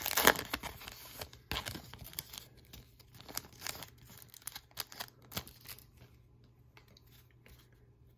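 Trading-card pack wrapper being torn open and crinkled by hand: a series of sharp rips and rustles that die away after about five seconds, leaving only faint handling noise.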